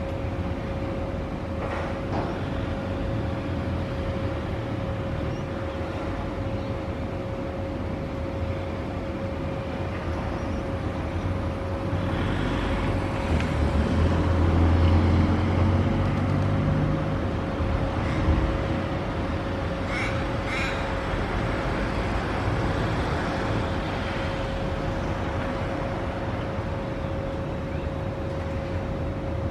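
Little ravens cawing in short calls over a steady background of traffic and engine hum. A louder low vehicle rumble swells and fades through the middle.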